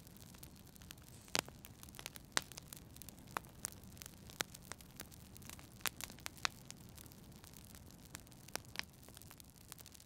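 Wood fire crackling in a fireplace: irregular sharp pops and snaps, a few louder ones, over a steady low rumble.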